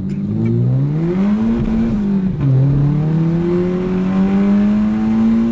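A car engine accelerating hard, heard from inside the car: the revs climb, drop sharply at a gear change about two and a half seconds in, then climb steadily again.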